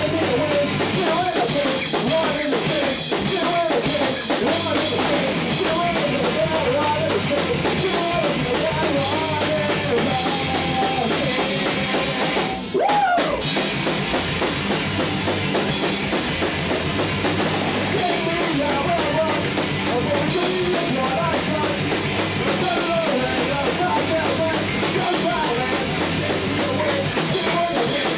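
Live punk rock band playing a song: electric guitar and drum kit, with a very brief stop about halfway through before the band crashes back in.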